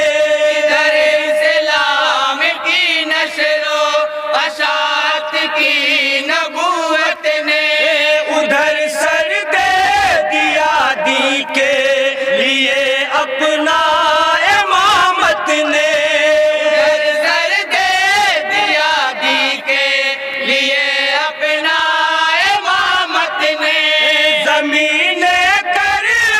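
A chorus of men singing an Urdu naat together in unison, with long held notes that waver and slide in pitch.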